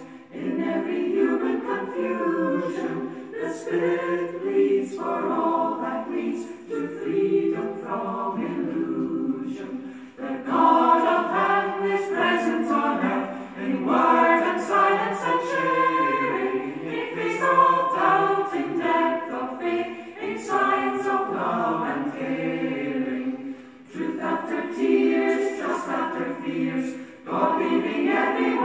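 A choir singing in sustained phrases, with short breaks between phrases about ten seconds in and again near the end.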